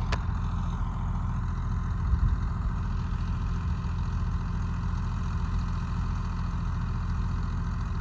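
Tractor engine idling steadily.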